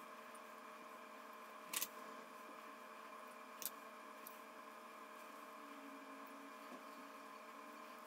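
Faint, steady electrical hum with a few sharp clicks, the loudest about two seconds in, as filled brick pastry is folded into a triangle by hand and a metal fork is handled over a marble slab.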